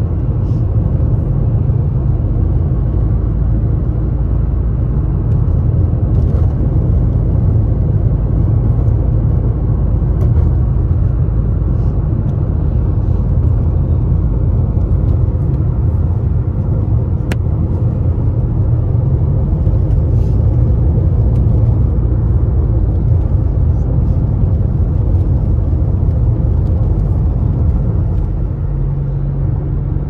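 Car driving along a road, heard from inside the cabin: a steady low rumble of engine and tyre noise.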